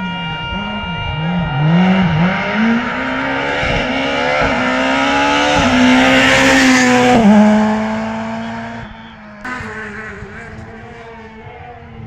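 Rally car engine approaching at racing speed, its revs rising and falling through gear changes and then climbing hard. It is loudest as the car passes about six to seven seconds in, drops in pitch sharply just after, and fades away.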